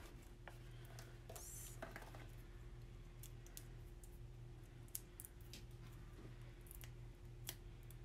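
Faint light ticks and soft rustles of a small cardstock banner being handled and foam adhesive dimensionals being put on it, over a steady low hum.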